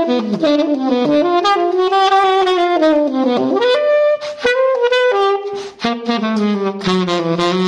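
Saxophone playing a fast improvised jazz line in quick, running notes, with a couple of short breaks between phrases.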